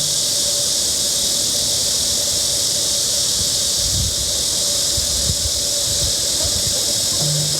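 Steady high-pitched hiss of a summer cicada chorus, with low rumbles on the microphone from about four seconds in.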